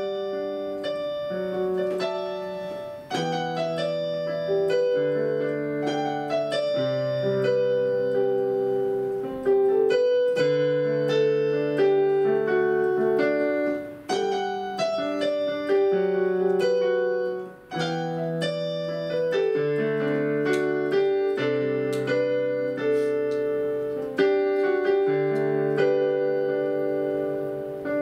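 Keyboard playing slow, held chords, the chord changing every second or two, with a couple of brief drops in level along the way.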